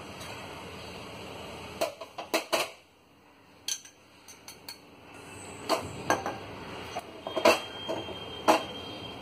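Wooden spatula knocking and scraping against a metal pan while stirring a thick cornflour paste: a quick run of sharp knocks about two seconds in, then scattered knocks through the second half.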